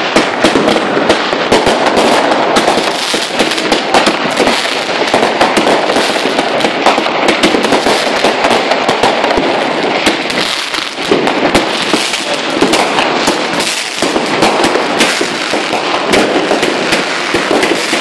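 Many fireworks and firecrackers going off at once: a dense, unbroken run of overlapping bangs and crackles.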